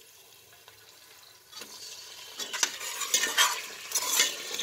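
Raw mutton pieces sizzling in hot mustard oil with fried onions in a steel pot while a steel ladle stirs and scrapes the pot. The sizzle starts after a quiet second and a half and grows louder, with several sharp scrapes of the ladle.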